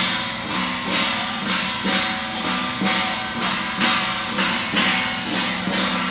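Chinese procession percussion: cymbals clashing with drums in a steady beat about twice a second, over gongs ringing.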